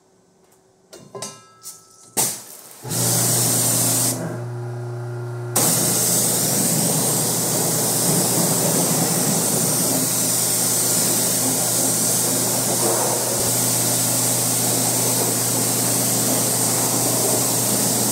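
Pressure washer starting about three seconds in and running with a steady hum; a couple of seconds later the spray from the wand comes on, a loud, steady hiss of water rinsing an engine bay.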